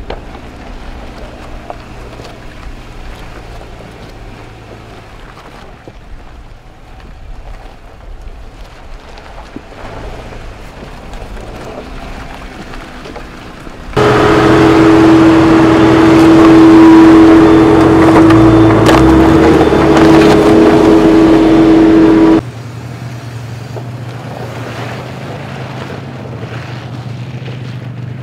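Jeep 4x4s driving slowly on an off-road trail, their engines running steadily at low speed. About halfway through, a much louder, steady engine note with a held whine comes in for about eight seconds and then cuts off abruptly.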